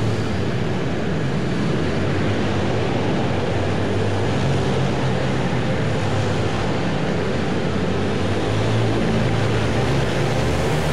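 Several pit bikes' small engines running together as they race laps, a steady droning drone.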